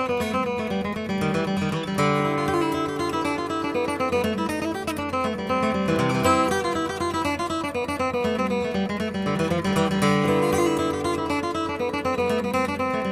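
Background instrumental music with a steady, even level throughout.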